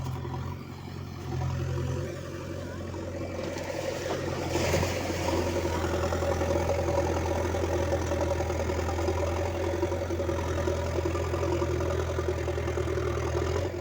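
An engine running steadily at a constant speed, getting a little louder about five seconds in, with a brief hiss at that point.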